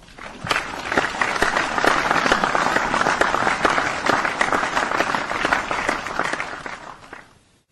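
Small audience applauding: many overlapping hand claps that swell in over about the first second, hold steady, then die away toward the end.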